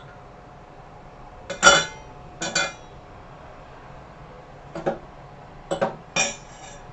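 Crockery clinking: about five short, ringing knocks of dishes or bowls touching or being set down. The loudest comes about a second and a half in.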